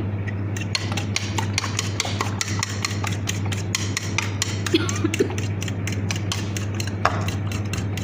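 Chopsticks beating eggs in a bowl: quick, steady clicking of the sticks against the bowl, several strikes a second.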